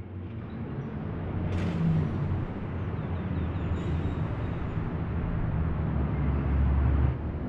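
Outdoor city ambience of road traffic: a steady low rumble of vehicles with a general hiss. It grows louder to a peak shortly before the end, then drops off suddenly.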